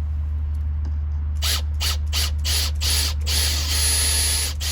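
Newly fitted outside water tap spitting and hissing in uneven bursts as air and water blow through the new pipe, then running in a steadier hiss for about a second near the end. A steady low hum lies under it.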